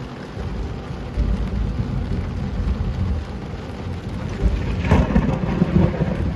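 Thunder from a close lightning strike over steady heavy rain: a low rumble builds about a second in, then a sharp tearing crackle near the end, 'like cutting through the sky'.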